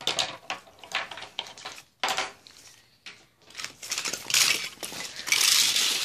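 Hands rummaging through a pile of toy cars: small hard toys clinking and clattering against each other, with a denser, louder rattle near the end.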